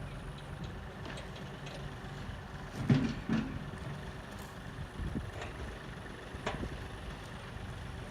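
An engine idling steadily, with a few sharp knocks and clanks over it, the loudest about three seconds in.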